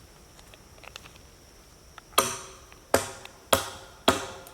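Four hammer blows on metal, about half a second apart, starting about two seconds in; each strike rings briefly with a clear metallic tone.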